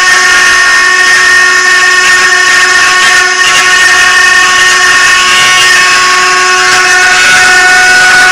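Multi-spindle four-axis CNC wood carving machine running, its high-speed router spindles giving a loud, steady whine over the hiss of the bits cutting a turned wooden workpiece. Near the end the whine shifts to a slightly lower pitch.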